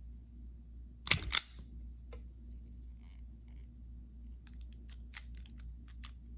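A wire stripper snapping twice in quick succession about a second in as it pulls the insulation off speaker wire, followed by scattered lighter clicks and ticks from the tool and wire.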